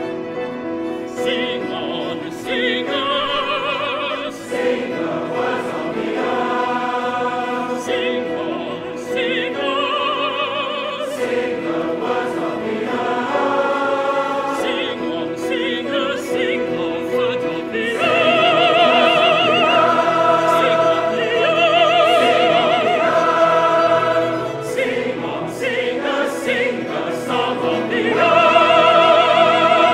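Mixed choir singing a classical choral work with piano and string accompaniment. The voices hold long chords with vibrato and swell louder about two-thirds of the way through and again near the end.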